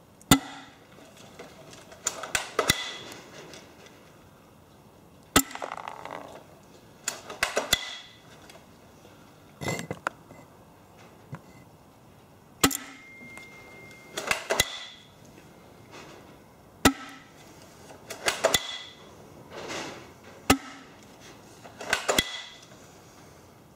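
Spring-powered airsoft sniper rifle, a Galaxy G39 Barrett M82A1 replica, fired about five times into a chronograph, a sharp crack every few seconds. Between shots comes the rattling clatter of the cocking handle being pulled back to re-cock the spring.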